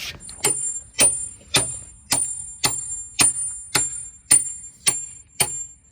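Hammer driving a bolt through drilled holes in a wooden post and its bracket: about ten even strikes, roughly two a second, each followed by a high metallic ring.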